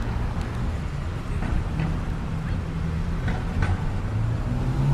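A motor vehicle engine running as a steady low hum in street ambience, with a few faint clicks.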